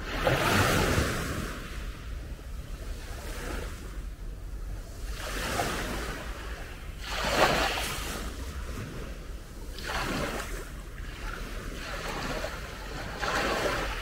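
Small sea waves breaking and washing up a coarse-sand shore, in about five unhurried swells; the loudest comes about seven and a half seconds in.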